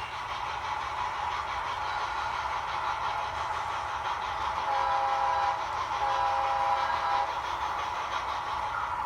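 HO scale model diesel locomotives running, their steady running noise joined about halfway through by two horn blasts from the sound-equipped lead engine, a short one then a longer one.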